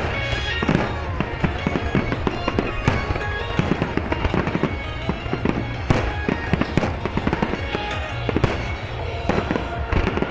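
Fireworks going off in rapid, irregular volleys of sharp bangs and crackles, several a second, over pop music.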